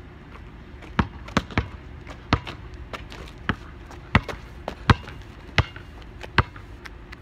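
Basketball dribbled on asphalt pavement: about a dozen sharp bounces at an uneven pace, starting about a second in.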